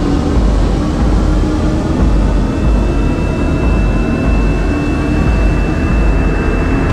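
An engine running steadily under a loud, even rushing noise. A thin, steady high whine joins about halfway through.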